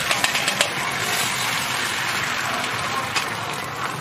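Egg frying on a hot flat-top griddle, sizzling steadily with sharp crackles and pops in the first half second and again near the end.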